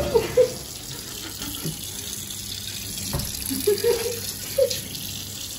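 Water tap running into a washbasin, splashing over hands washing under the stream. A sharp knock about three seconds in.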